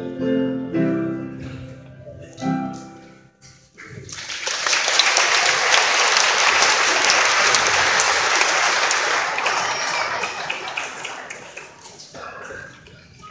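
The last few notes of a school song end, then an audience in a gym applauds, starting about four seconds in, holding steady and dying away near the end.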